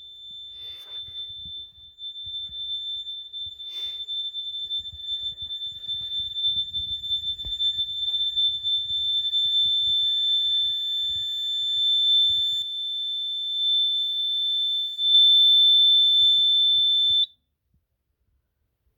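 Fire alarm control panel's trouble sounder giving a steady high-pitched tone, signalling a trouble condition: an open initiating-device loop with a smoke detector pulled from its base. The tone grows louder and cuts off suddenly about 17 seconds in.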